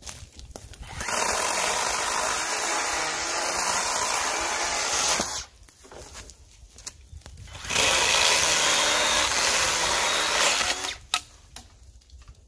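Makita DUC252 2x18V cordless chainsaw cutting wood in two bursts, about four seconds and then about three seconds long. The saw runs at full speed and stops between the cuts.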